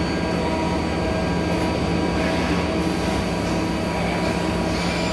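Mazak Quick Turn 100 CNC lathe running in a machining cycle, its turret tool working a small part held in the spinning chuck. It gives a steady mechanical hum with a thin high whine over a noisy hiss.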